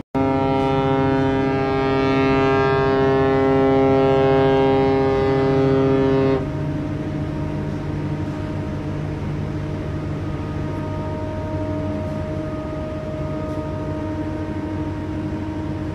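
A ship's horn sounds one long, steady blast of about six seconds and then cuts off. A fainter steady hum with a thin tone carries on after it.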